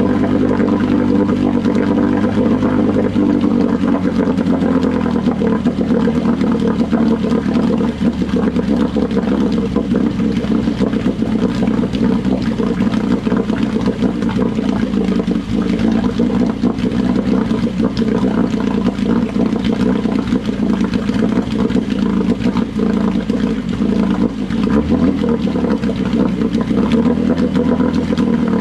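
1972 Johnson 9.5 hp two-cylinder two-stroke outboard running steadily in a water-filled test tank, with water churning and splashing under it. Its speed shifts slightly a few seconds in and again near the end.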